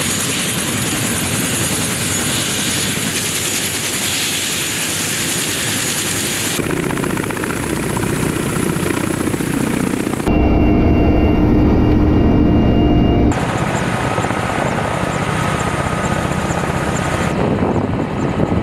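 Ka-52 attack helicopters' coaxial rotors and turbine engines running. The sound comes in several spliced takes and changes abruptly every few seconds, one stretch carrying a steady turbine whine.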